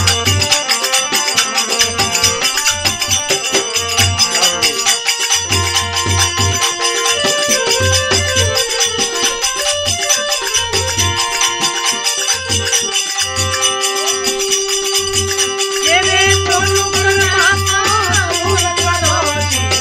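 Instrumental interlude of a Rajasthani folk bhajan: fast, dense percussion ticks over a repeating low drum pulse and sustained melodic tones. A wavering melodic line glides up and down near the end.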